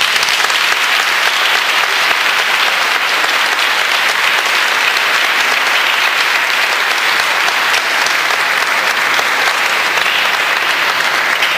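A seated audience applauding, with dense, steady clapping.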